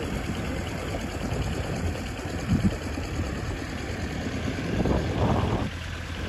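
Kubota L4018 tractor engine running steadily as the tractor drags a levelling implement through a flooded paddy field.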